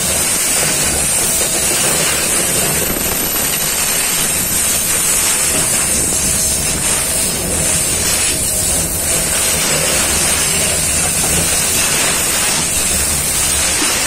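Freight train rolling past: a steady, loud rumble and hiss of wagon wheels on the rails.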